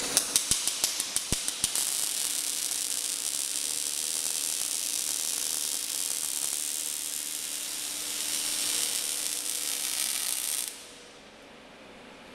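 Automatic wire-feed (MIG) welding arc on a circular-seam welder: a quick run of sharp crackling clicks for the first second and a half as the arc strikes, then a steady hiss while it welds, cutting off suddenly about eleven seconds in. A steady machine hum runs underneath.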